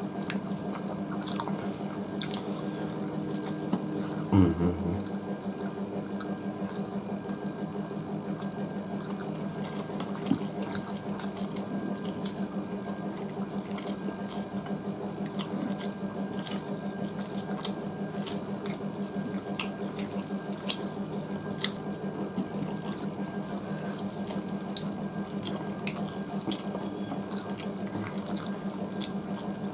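Eating with the hands from steel plates: many small clicks of fingers working rice and curry against the metal, along with chewing. Underneath runs a steady hum and hiss, like a running tap or an appliance, with a brief low thump about four seconds in.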